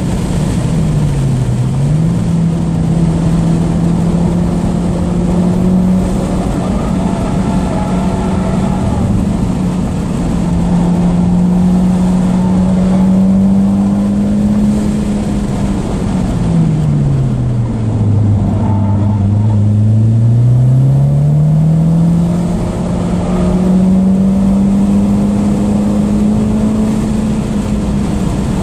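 Mitsubishi Lancer Evolution X's turbocharged 2.0-litre four-cylinder engine heard from inside the cabin while lapping a race track, its note climbing steadily under throttle. Revs dip briefly a second or so in, then fall away sharply about two-thirds of the way through before climbing again, over steady road and wind noise.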